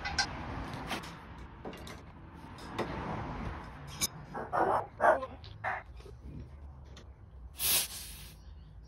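Clicks and knocks of gloved hands and tools working inside an air-conditioner outdoor unit, with a few short, loud bursts about halfway through and a brief hiss near the end.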